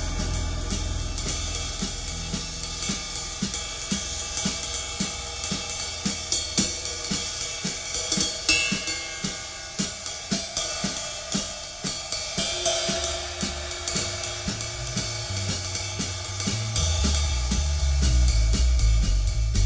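Jazz drum kit playing a steady pattern on cymbals and snare, about three strokes a second, recorded onto cassette through a single overhead microphone. Bass notes come back in strongly near the end.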